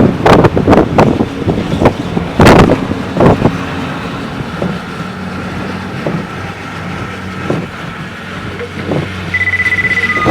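A motor vehicle's engine running steadily, with loud rough scraping strokes in the first few seconds and a single high beep near the end.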